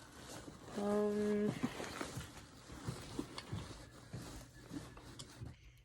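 Things being rummaged through and handled in a backpack: scattered light rustles and clicks. About a second in comes a short hummed voice.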